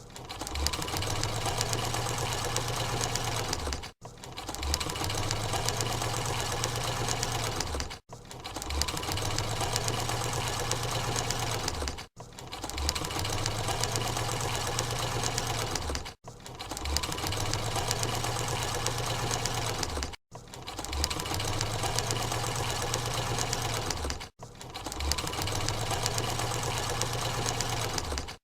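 Electric sewing machine running at speed, its needle stitching rapidly over a low motor hum. It runs in spells of about four seconds, each broken by a brief cut-out before starting again.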